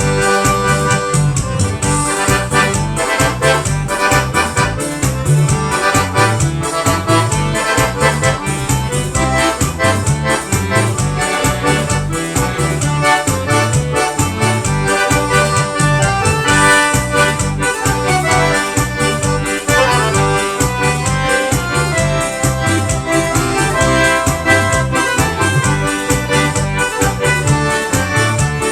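Forró band led by a button or piano accordion (sanfona) playing an instrumental, slow rastapé, with a steady bass-and-drum beat under the accordion's chords and melody.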